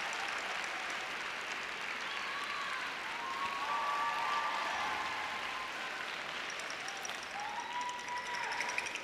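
Large arena crowd applauding steadily for a figure skater at the end of his program, with a few faint voices or whistles rising out of the clapping.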